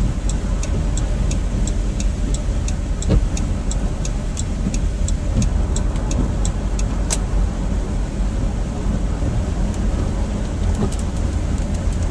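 Steady low rumble of a car's engine and tyres heard inside the cabin, with the turn-signal indicator ticking evenly, about three clicks a second, until it stops about seven seconds in, as a lane change is made.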